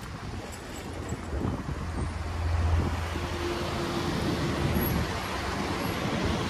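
City street traffic noise, a steady haze of motor vehicles running nearby, with a low engine rumble that swells about two seconds in.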